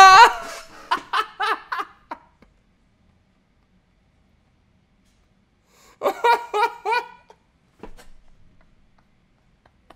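A man laughing in two bouts: one in the first two seconds and another about six seconds in, with silence between.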